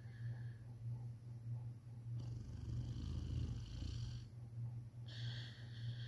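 Boxer dog snoring in its sleep: a low, steady rumble with each breath, swelling about two to four seconds in.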